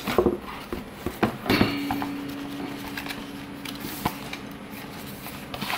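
Handling of cardboard packaging: scattered taps, knocks and scrapes as a long cardboard box holding helicopter main blades is lifted out and opened, with one sharper knock about four seconds in. A faint steady low hum runs underneath from about a second and a half in.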